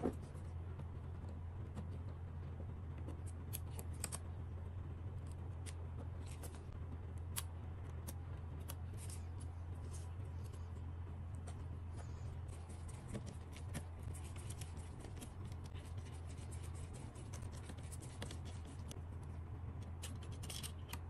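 Light irregular clicks, ticks and scrapes of gloved hands and metal tweezers handling a DJI Mini 3 Pro's small plastic parts and circuit board, over a steady low hum.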